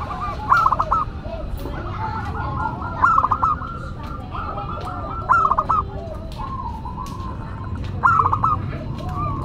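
Zebra dove (perkutut) cooing: a short phrase of quick staccato notes repeated four times, about every two and a half seconds, with softer rolling coos in between.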